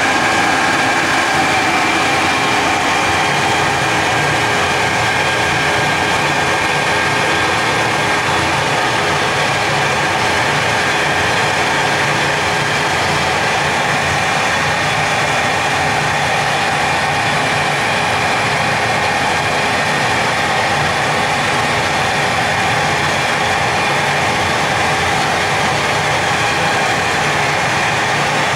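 A machine running steadily, a constant mechanical hum with several steady whining tones on top.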